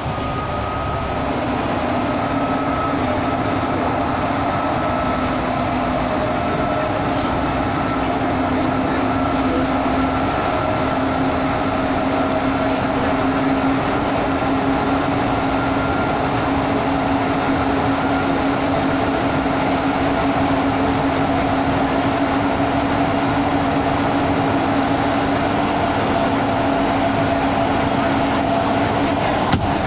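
Steady running noise of a bus heard from inside its cabin as it drives through a road tunnel: engine and tyre rumble with a steady hum at a few pitches, getting a little louder in the first couple of seconds as the bus enters the tunnel.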